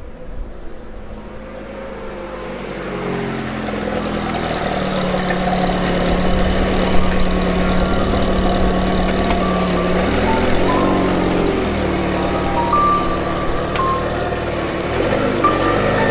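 Peugeot 206's engine running as the car drives slowly up and pulls in, getting louder over the first few seconds. The engine note shifts in pitch about two-thirds of the way through and again near the end.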